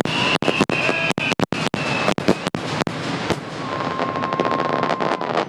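Aerial fireworks bursting in rapid, dense succession with crackling reports. A high whistle sinks slightly in pitch over the first two seconds, and a steady, lower whistle sounds from a bit past halfway until near the end.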